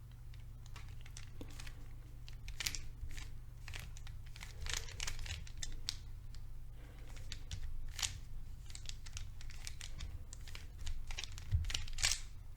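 Plastic Rubik's Cube layers being turned by hand, giving irregular clicks and rasping slides in quick clusters, heaviest near the end. A steady low hum runs underneath.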